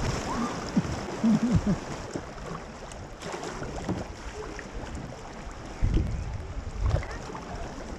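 River water rushing around a kayak as it goes down the river, with a few brief faint voices in the first two seconds and a couple of low buffets of wind on the microphone near the end.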